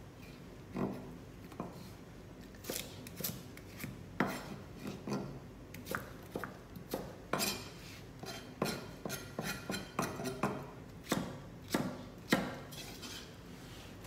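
Chef's knife cutting cucumber into strips on a plastic cutting board: irregular sharp knocks of the blade meeting the board, with a quicker run of cuts about two-thirds of the way through.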